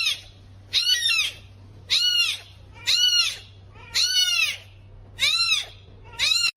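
An animal giving seven high-pitched calls, about one a second, each rising and then falling in pitch.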